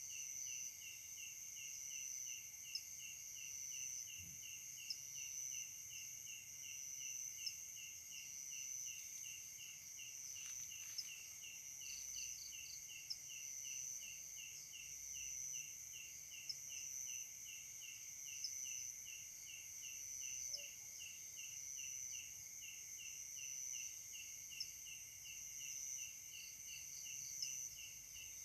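Night-time insect chorus: steady high-pitched trilling, with one insect pulsing evenly about three times a second.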